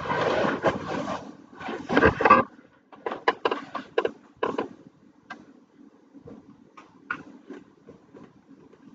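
Sheets of paper rustling as they are shuffled through, then a quick run of light taps and clicks.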